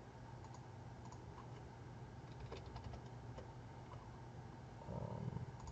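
Faint, scattered clicks of a computer mouse and keyboard, with a quick run of clicks about two and a half seconds in. A brief soft low sound comes near the end.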